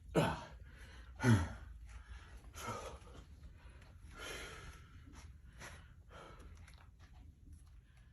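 A man breathing hard with effort. Two loud sighing exhales fall in pitch near the start, followed by several softer breaths out.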